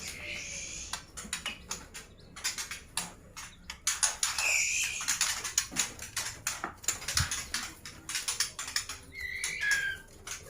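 Caged juvenile white-rumped shamas (murai batu) hopping and fluttering, making a busy run of quick taps and rattles, with three short chirps.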